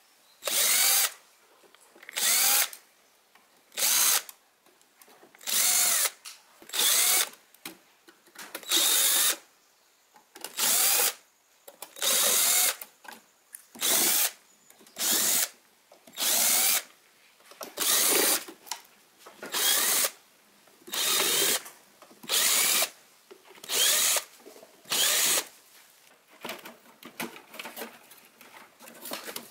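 Cordless power screwdriver running in short bursts, about seventeen times, each run backing a screw out of a stereo amplifier's metal rear panel. Lighter clicks and knocks follow near the end.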